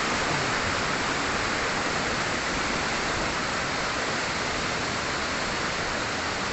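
Waterfall: water falling and splashing in a steady rushing noise.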